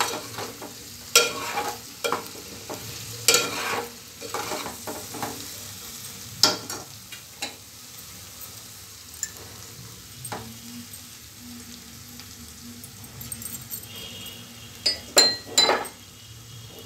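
A steel spoon stirring and scraping through brinjal and chana dal curry frying in a steel pot, with sharp scrapes and clinks a few seconds apart over a steady sizzle. Midway there is a stretch of sizzling alone, then a few more spoon clinks near the end.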